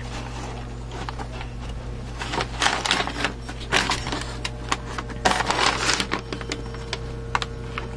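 Hard plastic motorcycle fairing being handled and turned over on newspaper: irregular light clicks and knocks with some paper rustle, over a steady low hum.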